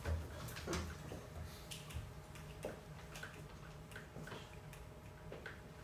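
Quiet room tone with light footsteps walking across the room, about two steps a second, over a faint steady hum.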